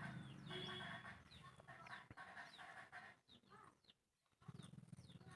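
Faint clucking of chickens with short high chirps, over a low steady hum.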